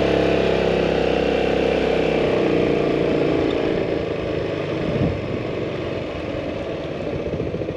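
Yamaha maxi-scooter engine running as it is ridden along a road. A steady engine note for the first two seconds or so drops into a lower, rougher running sound with road and wind noise.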